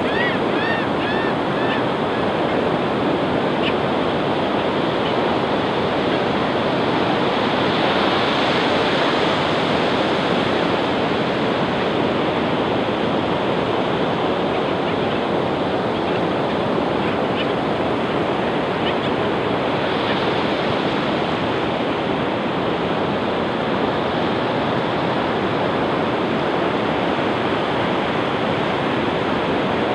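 Ocean surf breaking and washing up a flat sandy beach, a steady rush of waves. In the first second or so, a bird calls several times in quick succession over the surf.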